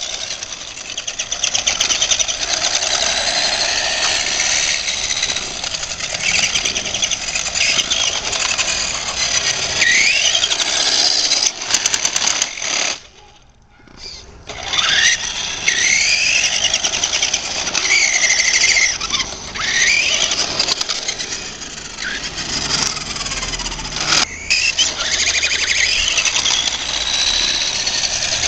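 Remote-control 1969 Camaro convertible driving, its motor and gears whining, the pitch rising and falling as it speeds up and slows. The whine drops away briefly about halfway through.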